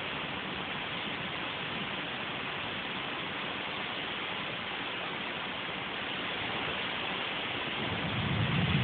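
Steady hiss of rain in a thunderstorm, with a low rumble of thunder starting to swell near the end.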